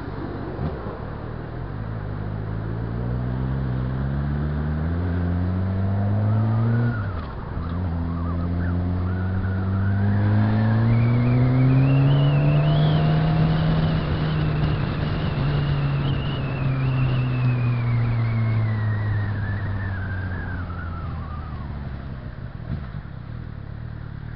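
Suzuki GSX-R 600's inline-four engine pulling hard as the bike accelerates, its note rising, dropping sharply at a gear change about seven seconds in, then climbing again and holding. The note then falls away as the bike slows toward the end.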